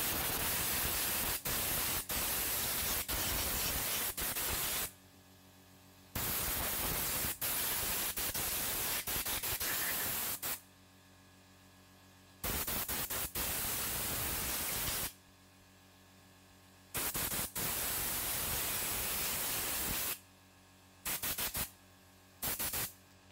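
Compressed-air blow gun hissing in a series of blasts lasting a few seconds each, with short pauses between them, blowing out the parts of a motorcycle carburetor. Two short puffs come near the end.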